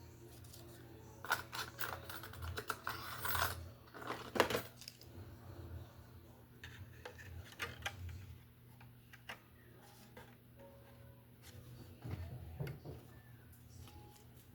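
Hand tool scraping and picking old glue out of cracks in a round-back mandolin's bowl: bursts of scratching and clicking, densest between about one and five seconds in, then scattered clicks and another short flurry near the end, over a steady low hum. The crispy scratching is the sign of glue still left in the crack.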